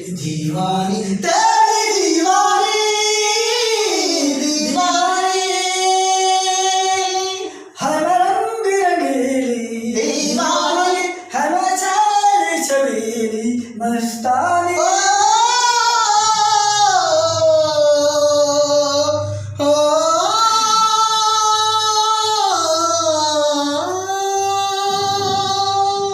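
A single high voice singing solo, holding long notes that bend and slide in ornamented runs, with short breaks for breath.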